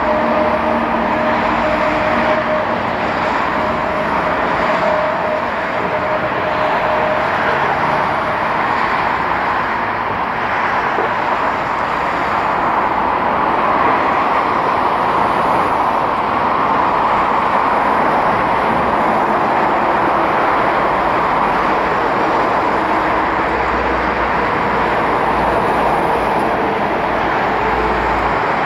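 Boeing 737's twin jet engines running at low thrust as the airliner taxis and turns on the runway: a steady engine noise with a low rumble, and a faint whine that fades out about seven seconds in.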